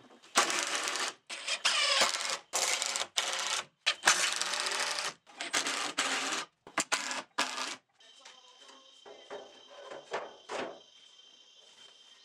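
Makita cordless impact driver driving screws into a plywood cabinet frame, in about a dozen short bursts with brief pauses over some seven seconds. After that comes a much quieter stretch with a few light knocks.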